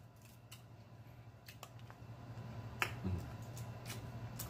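A handful of short, sharp clicks and snaps from eating crab, the loudest nearly three seconds in, over a low steady hum.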